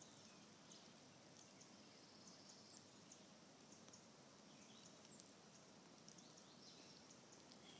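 Near silence: faint woodland ambience with scattered short, high chirps of small birds.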